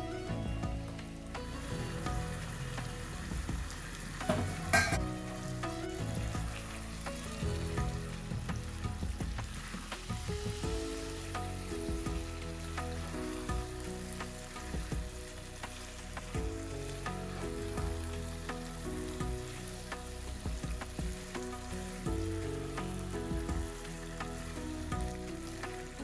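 Chicken pieces sizzling and frying in spiced onion masala in a non-stick pan, stirred and turned with a spatula, over background music. A sharp clack about five seconds in is the loudest sound.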